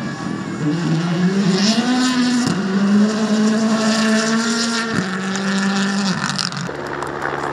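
Rally car engine at full throttle. Its pitch climbs for about a second, then holds high, broken twice by sharp gear shifts. Near the end the sound switches abruptly to a lower, steadier engine note.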